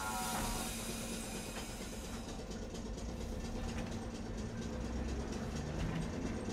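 Tosaden streetcar running along its track, heard from inside the cab: a steady motor hum with low rumble and light clicking and rattling from the wheels and body.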